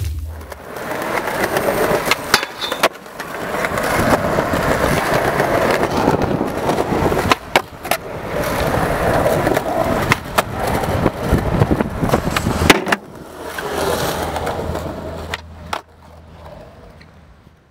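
Skateboard wheels rolling on concrete, with several sharp clacks of the board popping and landing, and the board running along a concrete ledge around the middle. The sound fades out near the end.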